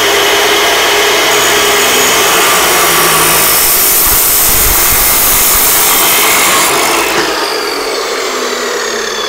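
Abrasive chop saw's cut-off wheel grinding through steel tubing with a loud, harsh rasp. About seven seconds in the cut ends and the motor's whine falls as the wheel spins down.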